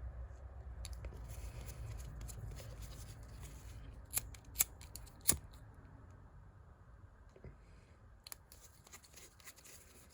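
Close hand work on a nylon watch strap: scratchy rasping and rustling with three sharp clicks a little past the middle.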